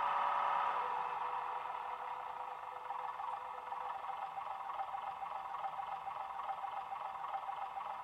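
Soundtraxx Econami DCC sound decoder playing a first-generation DMU diesel engine sound through a model railcar's small speaker. The engine note drops about a second in and then runs on steadily at a lower level as the railcar comes to a stand.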